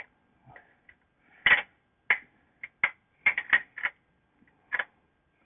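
Sharp metallic clinks and taps, about eight of them at irregular intervals: a steel bolt held on a magnet knocking against the spring mount as it is worked through the mounting hole.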